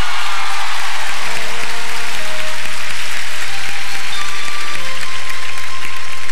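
Audience applause over a live band playing the quiet opening bars of a ballad, with long held keyboard and bass notes that change chord about a second in and again near five seconds. The applause thins out as the intro goes on.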